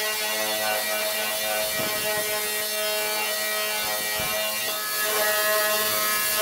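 Power tool with a steady whine, abrading paint and rust off the refrigerator's sheet-metal body, with a grinding, scraping sound and a couple of short knocks.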